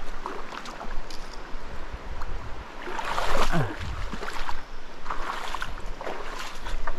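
Rushing water of a river rapid with wind buffeting the microphone and a few light knocks, plus a short falling tone about three and a half seconds in.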